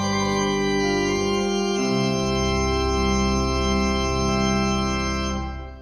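Organ playing sustained chords, moving about two seconds in to a final chord with a deep bass note that is held and then fades out near the end.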